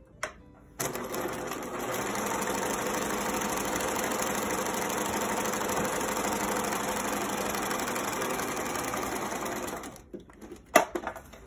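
Bernina sewing machine stitching a straight seam through two layers of cotton fabric: it starts about a second in, runs at a steady speed for about nine seconds, then stops. A few sharp clicks follow near the end.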